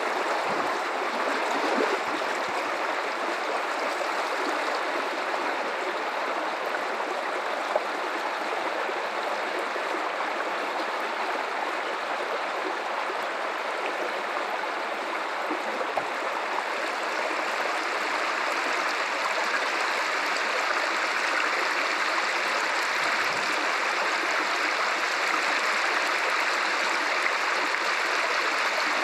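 Guadalupe River water running and rushing over rocks, a steady even flow that grows slightly louder after about 18 seconds.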